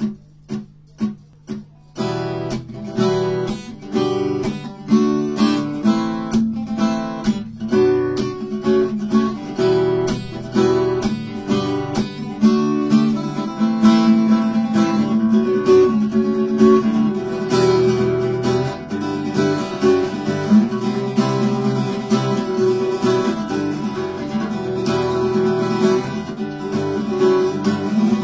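Instrumental music on acoustic guitar: four separate chords struck about half a second apart, then continuous strumming and picked notes as a song introduction.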